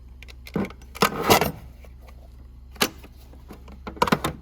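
Metal tools clinking and clattering as they are handled in a metal toolbox, in separate knocks: a cluster about a second in, one near three seconds, and a few near the end.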